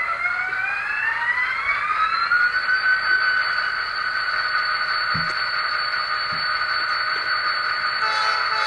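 Factory sound decoder in an Atlas N scale EMD SD35 model locomotive playing diesel engine sound through its onboard speaker: a whine rising in pitch over about two seconds, then holding steady. Two brief low knocks come in the middle.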